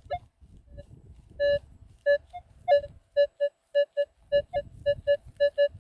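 Metal detector giving a run of short, identical mid-pitched beeps as the coil is swept back and forth over a buried target, coming faster later on. The detector reads the target as a good conductor.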